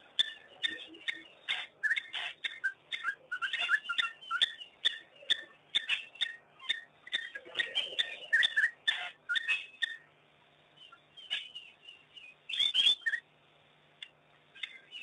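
A pack of African wild dogs twittering: a rapid, dense run of short high chirps that breaks off for about two seconds two-thirds of the way through, then one brief loud burst.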